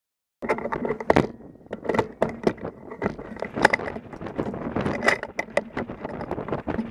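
Handling noise from a bolt-action rifle being shifted against a wooden barricade: a rapid, irregular run of knocks, clicks and scrapes, with wind on the microphone.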